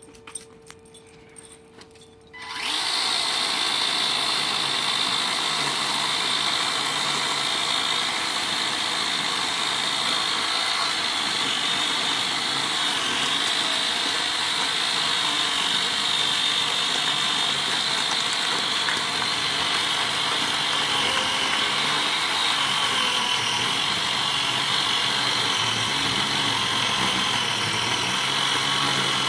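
Makita two-battery 18-volt cordless chainsaw: after a few faint clicks, its electric motor and chain start suddenly about two and a half seconds in and run steadily with a high whine.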